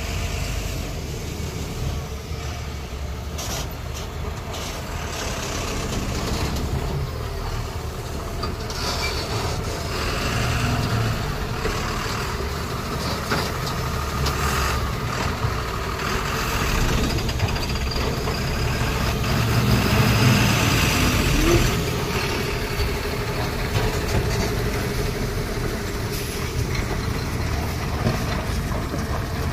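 Laden Tata 2825.K tipper truck's diesel engine running under load as it crawls through deep mud, a steady low drone that grows louder about twenty seconds in, with a few brief clicks and knocks.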